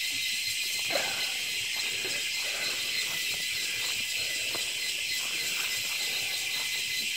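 Cicadas in the surrounding forest droning in a steady, high-pitched chorus, with faint footsteps on the trail beneath it.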